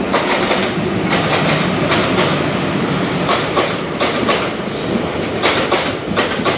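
Train rolling through a railway station, its wheels clattering over the rail joints in a run of irregular sharp clicks over a steady rumbling noise.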